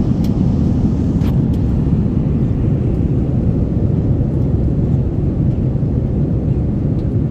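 Steady low rumble of an airliner cabin in flight: engine and airflow noise heard from inside the passenger cabin.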